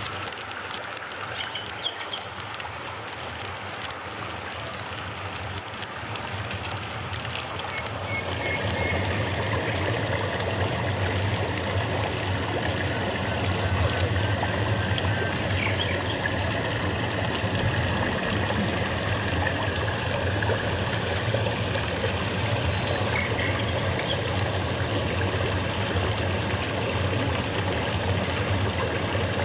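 Steady sound of moving water, growing louder about eight seconds in and then holding.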